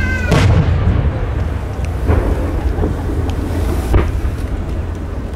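Aerial firework shells going off: a heavy boom about a third of a second in, a weaker bang near two seconds and a sharp crack near four seconds, each followed by a rolling echo. A steady low rumble of wind on the microphone runs underneath.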